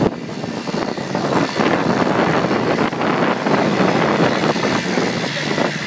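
Outboard motor running at speed, with water rushing and splashing along the hull and wind buffeting the microphone.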